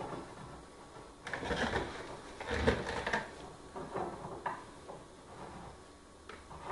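Hand-working noises as a metal flange is screwed by hand onto the threaded end of a handrail bar: irregular scraping and rubbing with a sharp knock a little before the middle, then a few light clicks.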